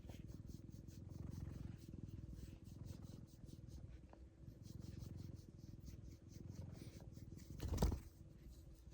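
A domestic cat purring steadily close by, a low, fast-pulsing rumble. Near the end there is a single louder thump.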